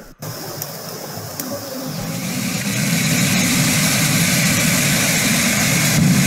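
Muddy floodwater rushing in a fast torrent, a steady, dense rushing noise that builds over the first two or three seconds and then holds.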